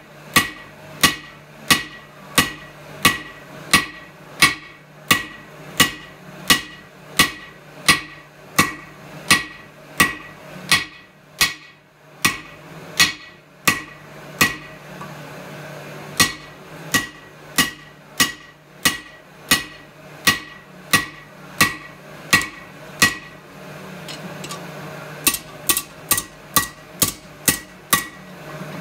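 Hand hammer striking hot steel of a drawknife blank on an anvil, each blow ringing, at about two blows a second. There is a short pause near the middle and another a few seconds before the end, after which the blows come quicker; a steady low hum runs underneath.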